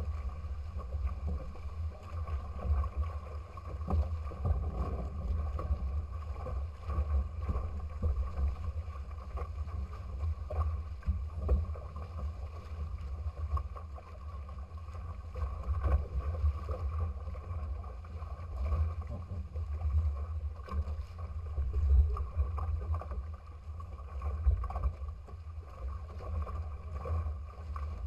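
Water rushing and splashing past a small sailing trimaran's hulls as it moves under sail, with a low rumble of wind on the microphone that rises and falls throughout and is the loudest part.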